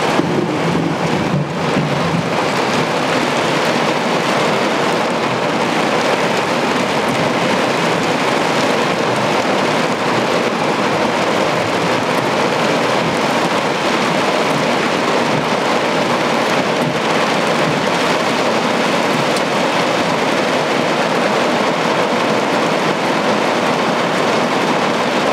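Heavy rain pouring down steadily in a thunderstorm, a dense even hiss with no pauses.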